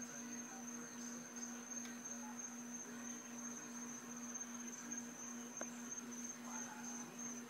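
Crickets trilling at night: a steady high-pitched trill, over a low pulsing hum.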